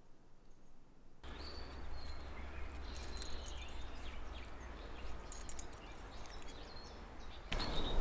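Outdoor woodland ambience: birds chirping and calling over a low steady rumble, with a few faint clicks. The first second or so is near silent before the ambience starts abruptly.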